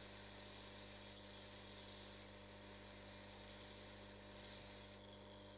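Near silence: a steady low mains hum under a faint hiss, with the hiss easing slightly about five seconds in.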